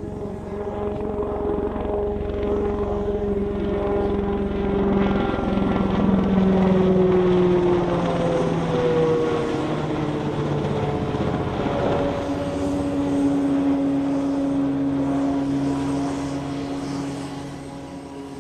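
Piasecki X-49A compound helicopter in flight: steady turbine and rotor noise with several held tones that slowly slide down in pitch, loudest around the middle.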